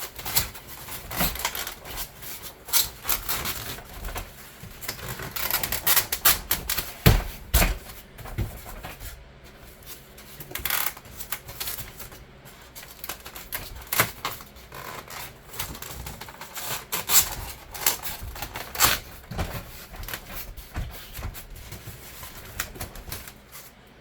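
Pieces of rigid foam insulation board being handled and wedged into a garage door panel: irregular scraping and clicking, with the sharpest knocks about seven seconds in.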